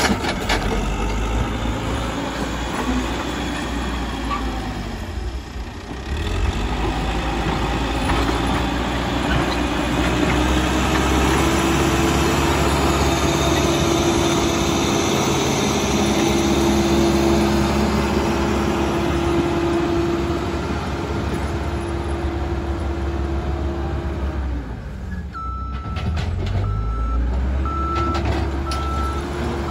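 Caterpillar 434E backhoe loader's diesel engine running under load as it moves and grades soil. Near the end a reversing alarm beeps in a steady series of short high tones.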